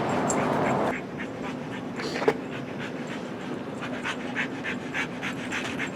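Dog panting in short, quick breaths. A steady rush of noise cuts off about a second in, and there is one sharp click a little past two seconds.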